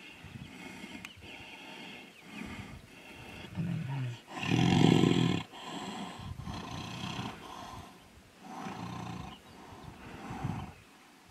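Tigers growling during a fight, in a series of short growls about a second apart, with one much louder, longer growl about four and a half seconds in.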